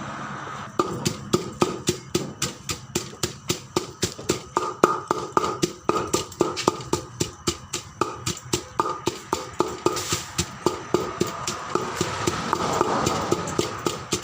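Som tam (papaya salad) being pounded with a wooden pestle in a mortar: quick, even knocks about three to four times a second, starting about a second in.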